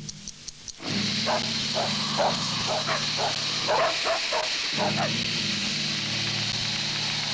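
A team of sled dogs giving short barks and yelps, a dozen or so scattered calls, over a steady hiss and low hum. A clock ticks briefly before the dogs come in, just under a second in.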